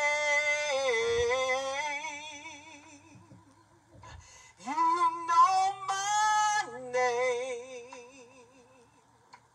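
A woman singing a worship song solo, holding long wordless notes with vibrato in two phrases, the second trailing off to near silence near the end.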